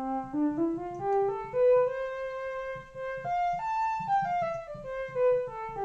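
Behringer Crave single-oscillator analog synthesizer playing a bowed-string patch with fine vibrato, one note at a time. A quick run of notes climbs a scale to a long held note, jumps a little higher, then steps back down the scale.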